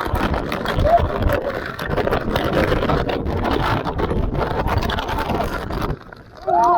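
Loud steady rushing of water, heavy on the microphone, that drops away near the end. Just before the end a pitched call glides up and starts to hold.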